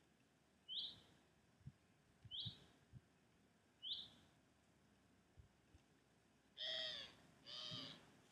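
Faint animal calls: three short, high chirps spaced about a second and a half apart, then two longer, arching cries near the end.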